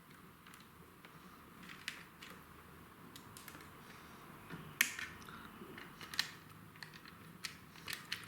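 Faint, irregular small clicks and ticks of a screwdriver and cable cores being worked into the terminals of a new double socket while the live wires are connected, the sharpest clicks about five and six seconds in.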